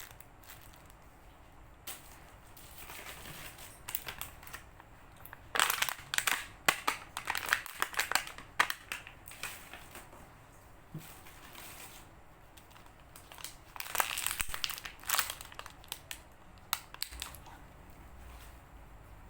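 Squishy toys squeezed and handled by hand, making crinkling, crunching noises in two spells: one about six seconds in and one about fourteen seconds in, with scattered smaller crackles between.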